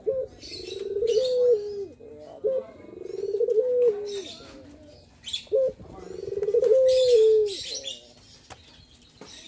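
Male ringneck dove (puter) cooing in its perched display. It gives three long rolling coos that rise, hold a note and drop away, with short single coos between, and a hissy higher sound over some of the coos.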